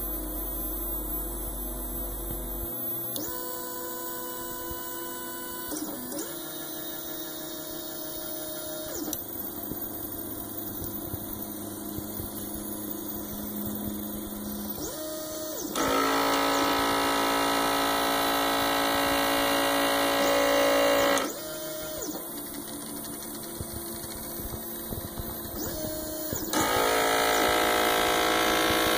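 Homemade pick-and-place machine built on a 3D printer at work: its stepper motors whine through short moves, the pitch ramping up and down as the head starts and stops, over a steady hum. Twice a louder buzzing motor, the pick head's vacuum pump, runs for several seconds: once about halfway through and again near the end.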